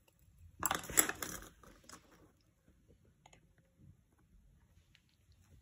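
Handling noise: a short crunchy rustle full of small clicks, starting about half a second in and lasting about a second and a half, then a few faint ticks.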